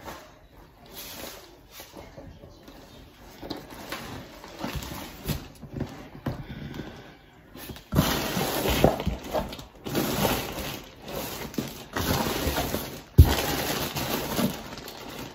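Plastic bags rustling and crinkling as items are handled and unpacked, faint at first and much louder from about halfway through, with one sharp knock near the end.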